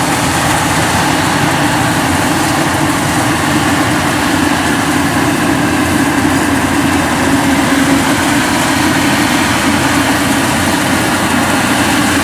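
Yanmar YH850 combine harvester running steadily under load as it cuts rice, its engine and machinery holding an even, unchanging note.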